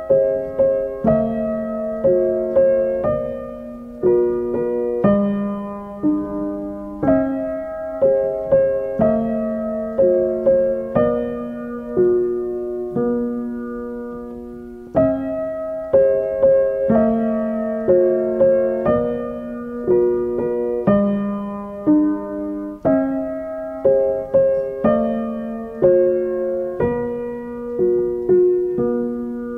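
Background piano music: a slow melody of struck notes and chords, each ringing and fading.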